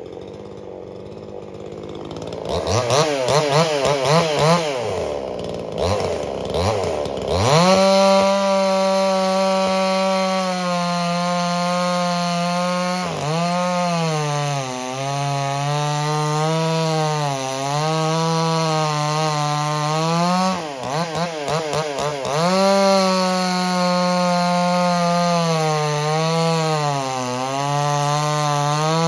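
A two-stroke chainsaw blipped up and down a couple of seconds in, then held at full throttle from about seven seconds in while cutting wood. The engine pitch sags and recovers several times as the chain bites and clears.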